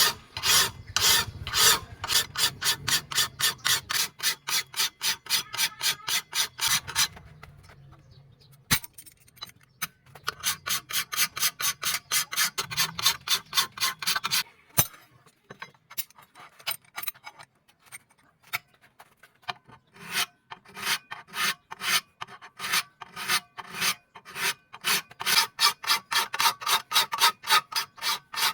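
Hand file rasping over the steel of a leaf-spring knife blank, in quick even strokes of about three a second. The strokes come in runs, with two pauses of a few seconds where only scattered strokes are heard.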